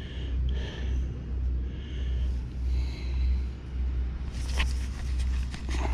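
Low rumble of wind buffeting the microphone, swelling and fading about once a second, with a couple of brief rustles near the end.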